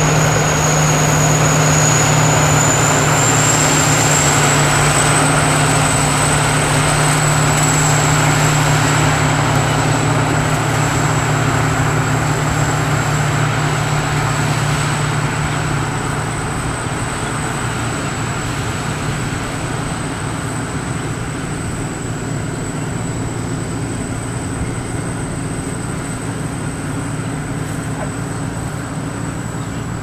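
Sakpattana KM-D 4.1 rice combine harvester, with its 225 hp turbocharged engine, running steadily while harvesting: a constant mechanical drone with a thin high whine. It grows quieter about halfway through.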